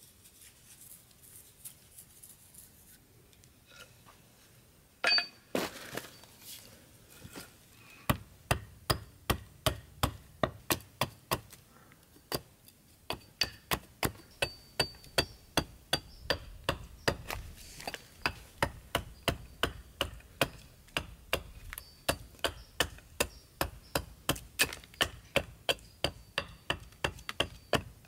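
Hatchet chopping a green tan oak handle blank on a wooden chopping block. A single heavy blow lands about five seconds in, then from about eight seconds a steady run of quick strokes follows, about two to three a second.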